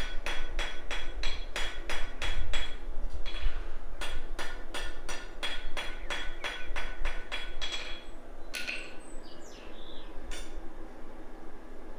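Blacksmith's hand hammer striking steel on an anvil, about three ringing blows a second, with a short pause about three seconds in. The blows stop about eight seconds in, and a couple of single metallic clinks follow.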